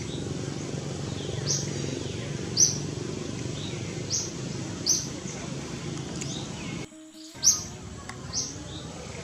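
Bird chirping in short, high notes at irregular intervals of about a second, over steady low background noise. The sound drops out briefly just before 7 seconds in.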